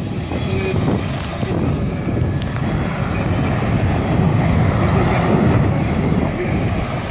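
Airplane engines running, a loud steady rumble that swells a little past the middle.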